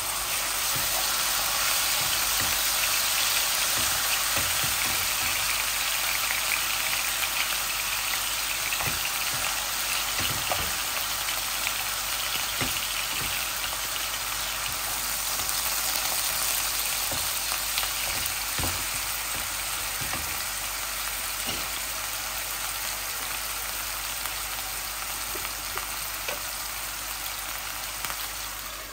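Marinated chicken pieces sizzling as they fry in a little oil in a nonstick frying pan, with a steady hiss. A wooden spatula stirs them, with occasional light scrapes and taps against the pan.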